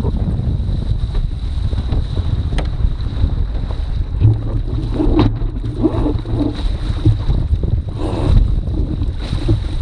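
Wind buffeting the microphone on a foiling sailing dinghy, with water splashing and slapping against the hull as the boat slows almost to a stop after a spin-out. A faint steady high whine runs underneath.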